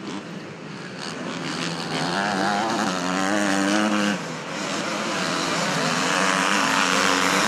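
Motocross dirt bike engines running at high revs as the riders race past, the pitch climbing and dropping as they accelerate and shift. The sound briefly dips about four seconds in.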